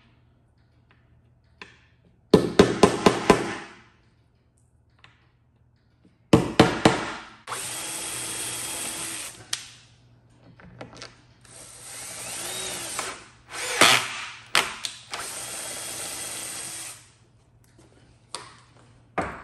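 Two quick runs of hammer taps set T-nuts into a wooden pinball playfield. Then a cordless drill runs in three spells of a couple of seconds each, the middle one speeding up and slowing down, drawing the T-nuts down into the wood.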